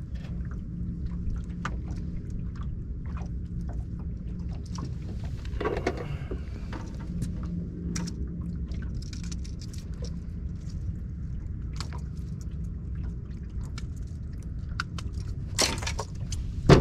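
Steady low rumble of wind and water around a fishing boat, with scattered small clicks and knocks and a loud knock near the end.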